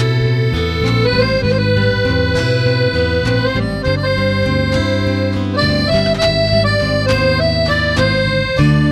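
Accordion music: a melody of held notes over sustained bass chords.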